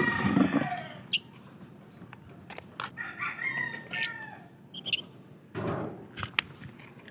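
Lovebirds calling: many short, sharp, high chirps, with longer drawn-out calls at the start, about three seconds in and again near six seconds.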